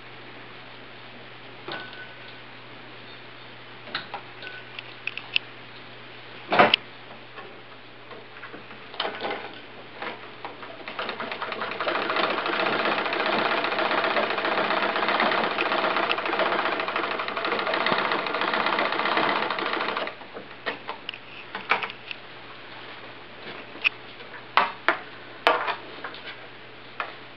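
1919 Singer No. 15 sewing machine running at a steady fast clatter for about nine seconds, starting about eleven seconds in and stopping about twenty seconds in. Before and after it come scattered clicks and knocks of the mechanism being handled, the loudest a sharp knock about six and a half seconds in.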